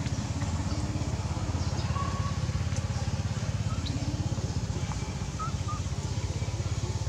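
An engine running steadily at idle, a low rapidly pulsing hum, with a few faint short high chirps over it.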